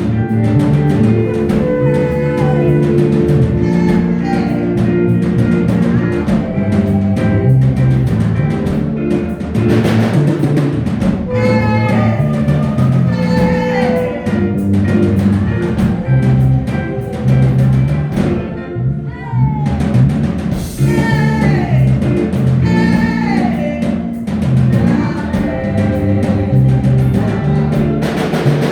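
Live church praise music: a drum kit keeping a steady beat under a stepping bass line, with melody lines gliding over the top.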